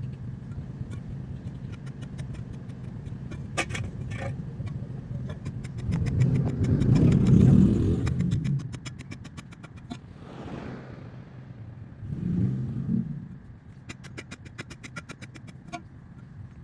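A motor running with a steady low hum, swelling louder for about two seconds midway and again briefly later, with rapid light clicking over it.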